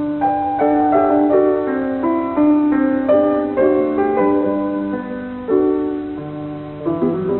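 Solo piano playing a melody, each note struck and left to ring, over lower notes held beneath.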